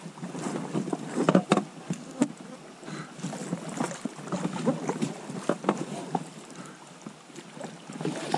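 Irregular splashes and knocks of a small boat being moved along a shallow river.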